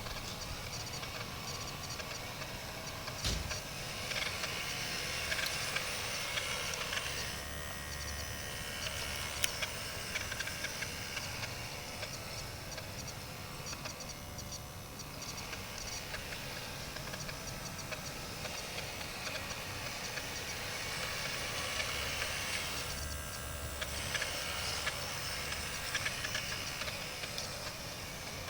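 Radio-controlled model construction machines at work: small electric drive motors and gearboxes whining and rattling, the whine rising and falling as they move. One sharp knock about three seconds in.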